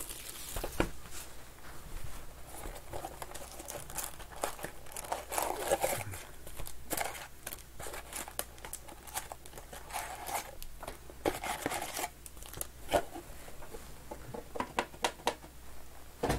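Plastic shrink-wrap being torn off a sealed hobby box of trading cards and crumpled, then the cardboard box opened and its shiny wrapped card packs pulled out and set down, a steady run of crinkling and crackling with sharp little clicks and taps.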